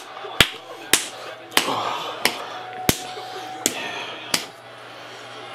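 Sharp blows of a hand on a bare chest and stomach, seven in a row at about one and a half a second, stopping a little over four seconds in.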